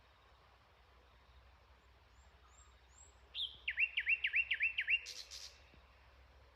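An unidentified bird calling at night: a rapid series of about six whistled notes, each sliding downward, about halfway through, ending in a short harsh rasp. Fainter high up-slurred chirps are heard before it.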